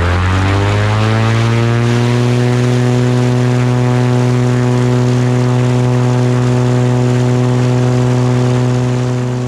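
Propeller airplane engine rising in pitch over the first second or two as power comes up, then running steadily at high power, as for a takeoff.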